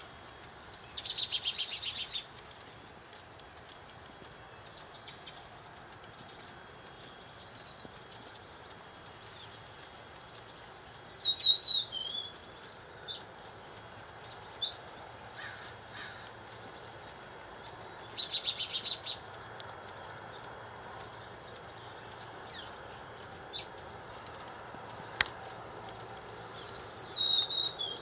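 Small songbirds calling: two loud whistled phrases that fall in pitch (about ten seconds in and near the end), two short rapid trills (about a second in and again around eighteen seconds), and scattered single chip notes, over a steady background hiss.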